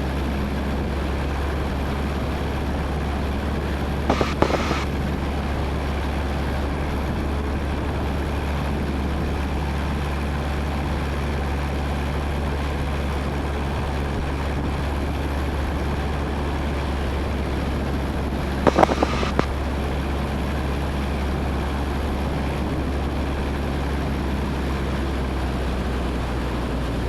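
1977 Cessna 172N's four-cylinder Lycoming engine and propeller droning steadily in cruise in the traffic pattern. Two short, louder bursts of sound break in, about four seconds in and again near nineteen seconds.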